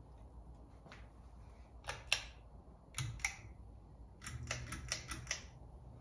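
Sharp mechanical clicks: two quick pairs, then a fast run of five or six, with a low hum coming in about four seconds in.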